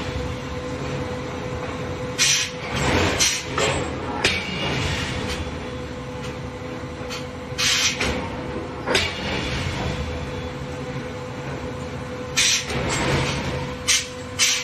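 Open-die forging machinery running with a steady hum and a constant tone, broken by about nine irregular, sharp strikes or bursts.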